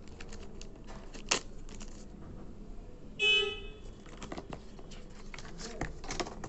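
Handling of a smartwatch's packaging: a plastic bag rustling and cardboard box parts tapping and sliding, as a run of light clicks and crinkles. A little over three seconds in, a short, loud honk-like tone cuts through for under half a second.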